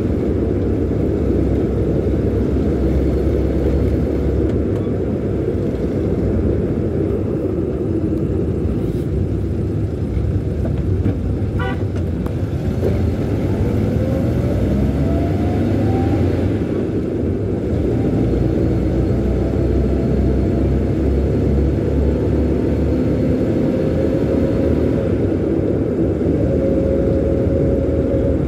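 A car driving along a road, heard from inside the cabin: a steady rumble of engine and tyre noise, with a tone that rises about halfway through.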